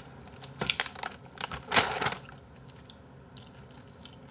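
Paper tissues rustling and crumpling in a few quick bursts, loudest about two seconds in, as they are pulled out and pressed to the mouth.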